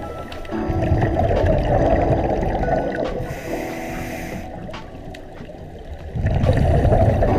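Scuba regulator exhaust heard underwater: a diver breathing out through the regulator in two long bubbling rushes, the first beginning about half a second in and the second about six seconds in, with a quieter inhale between.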